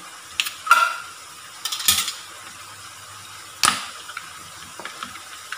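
A few sharp, irregular clicks and clacks as a pineapple juice container is handled and opened.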